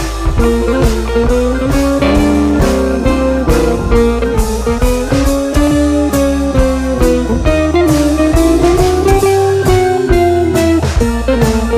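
Instrumental background music: a sliding lead melody over a steady drum beat.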